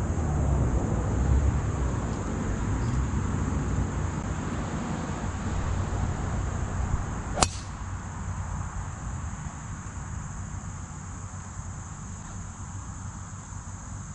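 A single sharp crack of a golf driver striking the ball off the tee, about halfway through, over a steady low rumble and a constant high insect drone.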